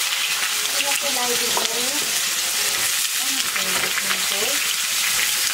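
Freshly added pumpkin pieces sizzling in hot oil in an iron karahi, a steady loud hiss of frying.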